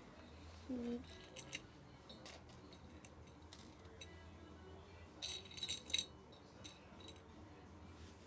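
Small trinkets and jewellery clicking and clinking as they are handled and sorted, with a cluster of rattling clinks about five to six seconds in, the loudest part. A short hum of a voice just under a second in.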